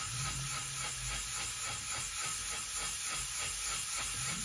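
Wet sanding by hand: a small plastic model lifeboat part rubbed in circles on a wet 800-grit sanding disc, giving a steady hissing scrape.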